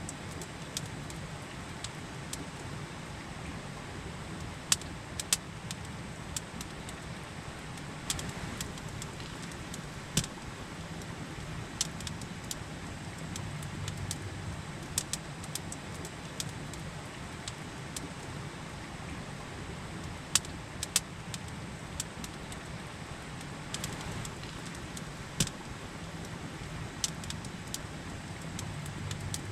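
Campfire crackling, with sharp irregular pops every second or two, over the steady rush of a river.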